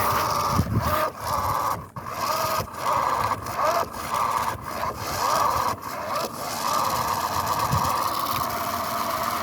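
Toy-grade RC car's small electric motor whining, its wheels spinning and scraping in sand. It comes in short stop-start bursts of throttle for about six seconds, then runs steadily. The car is stuck, digging into the sand without getting out.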